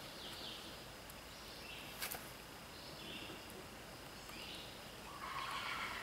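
Faint outdoor background of bird calls, short chirps coming and going, with one sharp click about two seconds in and a louder burst of sound near the end.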